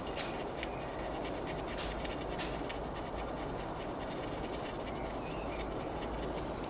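Faint, irregular scratching of a thin pointed tool rubbed against the side of a model locomotive, scraping off a number transfer, over a steady background hiss.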